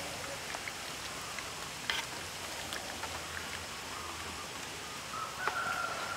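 A pot of curry broth simmering with a steady bubbling hiss while a metal ladle stirs it, with a few light clicks of the ladle against the pot, one about two seconds in. A faint thin whistle-like tone joins near the end.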